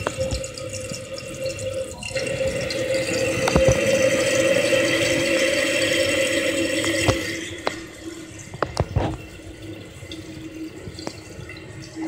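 Toilet tank refilling through its fill valve on a 2014 Glacier Bay dual-flush toilet: a steady hiss of water with a whine. About seven seconds in it grows quieter and the whine drops lower, and a few light clicks follow.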